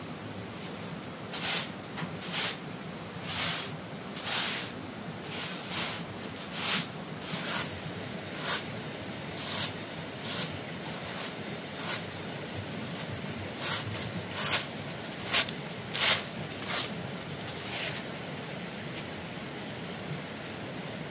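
Repeated strokes of a hand tool working earth, over twenty short scraping hits about one or two a second, stopping shortly before the end, over a steady hiss.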